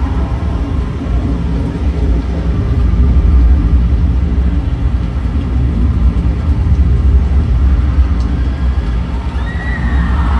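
Steady, loud deep rumble from the concert PA's intro, heard from among the audience. Near the end the crowd starts screaming and cheering.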